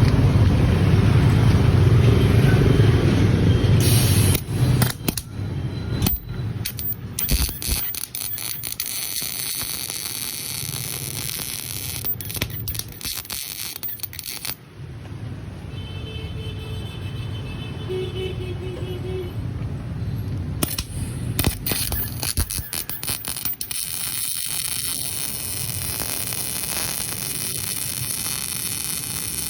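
MIG welding arc from a Daihen Almega 350 welder laying a bead on thin metal: a steady crackling hiss, starting about four seconds in after a louder low rumble.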